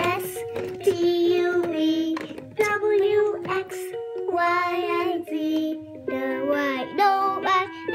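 A VTech toy steering wheel playing a children's song: a child-like sung voice over a simple electronic melody.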